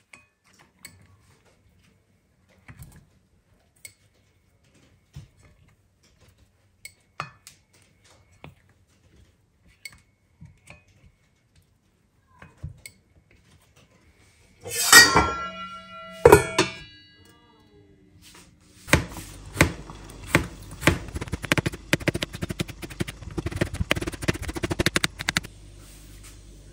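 Kitchen sounds: scattered light knocks and clicks of utensils, then two loud metallic clanks of a pan or pot with a ringing tail. After that a steak sizzles and crackles in a hot frying pan, and near the end this settles into a steady hiss.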